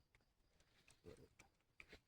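Near silence with a few faint clicks and one soft, low knock about a second in.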